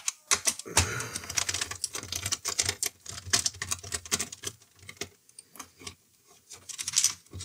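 A screwdriver working screws out of a turntable's platter mechanism: rapid, irregular light clicks and ticks of metal on the screws, thinning out near the end.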